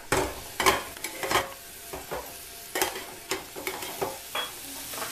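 Metal spatula and lid clinking and scraping against a metal kadhai, several sharp clinks spread over a few seconds, over a faint sizzle from the just-cooked pickle.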